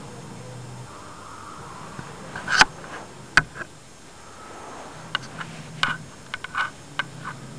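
K'NEX model V6 engine with a Roots-type supercharger working: its plastic gears and parts click and clatter irregularly over a low steady hum. A couple of sharp clicks come in the middle, then the clicking turns rapid and busy about five seconds in.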